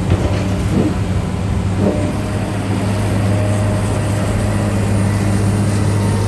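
Diesel engine of heavy construction equipment running steadily under load, with a few knocks in the first two seconds.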